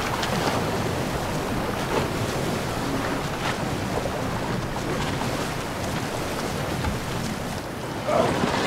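Open-sea waves washing and splashing around a swimmer, with the small splashes of his strokes scattered through the steady water noise.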